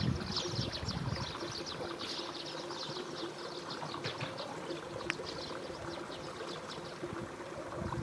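Shallow river water trickling and babbling steadily over the shallows, with many quick high flickers of sound through it.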